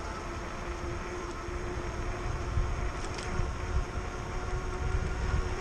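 Wind buffeting the microphone of a moving electric bike, an uneven low rumble, with a steady whine from the e-bike's motor underneath.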